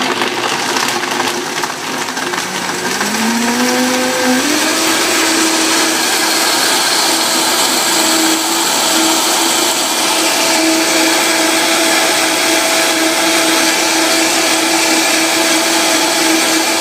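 Vitamix blender running loud and steady, blending frozen fruit, bananas, spinach and blueberries into a smoothie. About two seconds in, the motor's pitch climbs for a couple of seconds, then holds steady at high speed.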